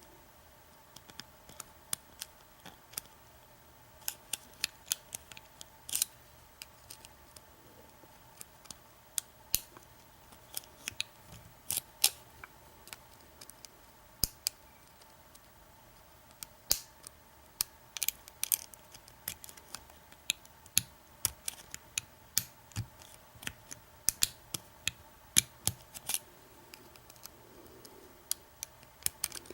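American Lock 1100 padlock being single-pin picked with a hook pick and tension wrench: irregular sharp metallic clicks and ticks, some in quick clusters, as the pick works the serrated pins and they set.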